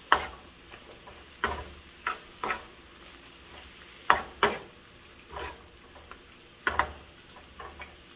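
A metal spoon stirring kimchi and bell peppers in a frying pan: irregular clinks and scrapes against the pan, roughly one a second, over a faint sizzle of frying.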